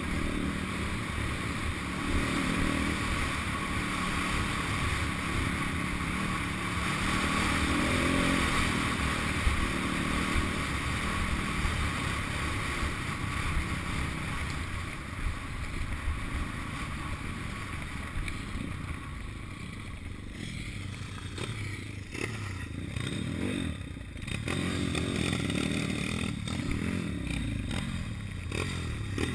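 Pit bike engine running as the bike rides along a dirt trail. The engine note falls away about two-thirds in, then picks up again for the last few seconds.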